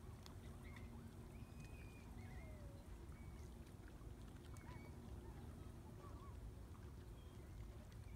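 Faint, distant birds calling: scattered short calls, some bending up and down in pitch, over a low steady rumble.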